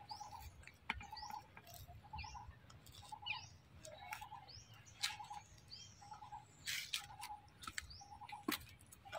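Birds calling: a short call repeated about once a second, with quick higher chirps that slide downward, and a few sharp clicks between them.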